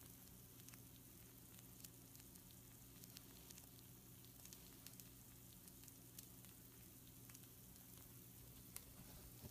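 Pizza rolls sizzling faintly on a baking sheet: a soft steady hiss with scattered small crackles and pops, over a low steady hum.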